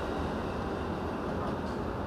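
Steady low hum inside a commuter train car standing at a station, with no distinct clicks or knocks.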